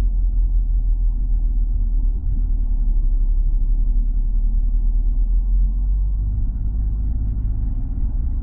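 Car driving slowly on a snow-covered road, heard from inside the cabin: a steady low rumble of engine and tyres.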